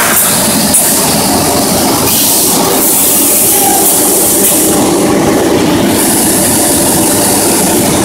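Circle grinding and washing machine running on metal discs: a loud, steady mechanical din with a high hiss that comes and goes.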